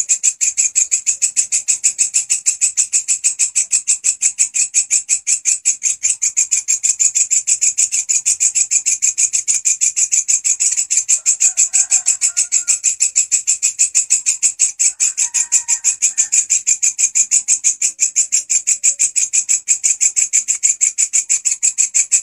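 A walang kecek insect stridulating loudly: a rapid, unbroken train of high, buzzy chirp pulses, kept up evenly throughout. A few faint, brief animal calls sound in the background.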